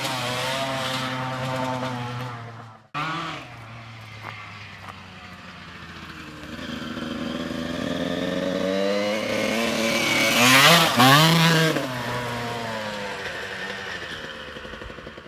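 Single-cylinder two-stroke engine of a 1995 Honda CR125 dirt bike, freshly rebuilt with a new piston and expansion chamber. It runs steadily and fades as the bike pulls away, then builds as the bike approaches, revs up and down as it passes close about ten to eleven seconds in, and fades away again.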